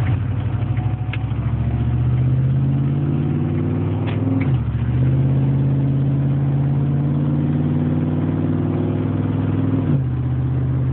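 Car engine running with a rapid, even knock that the owner suspects is piston slap. The revs are held up twice, dipping briefly about four and a half seconds in, and fall back to idle near the end.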